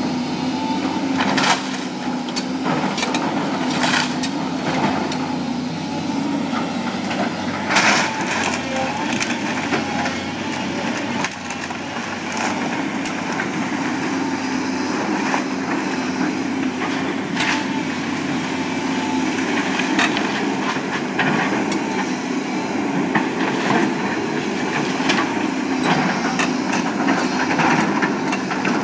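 A heavy machine's engine running steadily while wooden framing cracks and splinters, with sharp snaps scattered throughout, the sounds of a wood-frame house being torn down.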